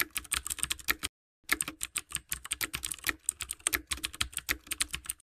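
Keyboard typing sound effect: a quick, uneven string of key clicks, with a short break about a second in before the clicking resumes.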